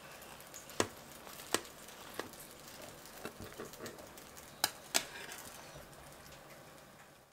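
A few sharp taps at uneven intervals over a low steady hiss.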